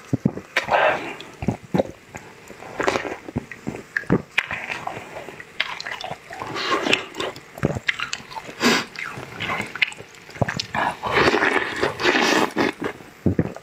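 Close-miked eating sounds: bites into a soft, browned stuffed food and wet chewing, with many short sharp mouth clicks. A bite comes near the end.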